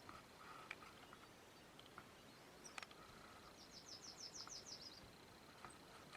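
Near silence, broken about three and a half seconds in by a small songbird singing one short, high trill of about ten quick notes, with a few faint clicks.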